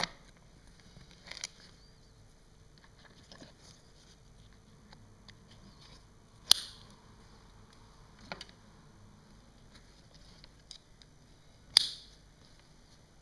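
Sharp plastic clicks of a motorcycle softbag's mounting plate, key lock and strap buckle being fitted and snapped shut, about five in all, with quiet handling rustle between them. The two loudest clicks come about halfway through and near the end.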